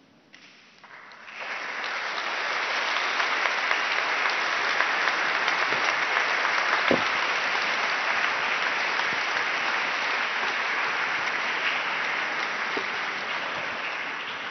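Audience applauding, the clapping swelling up about a second in and then holding steady.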